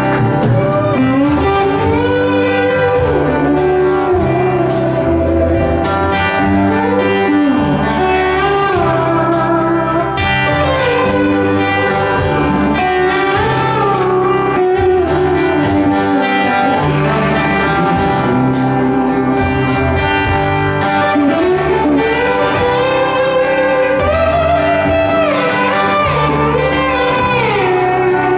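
Live rock band playing an instrumental outro: an electric guitar lead with bending notes over bass and a steady drum beat.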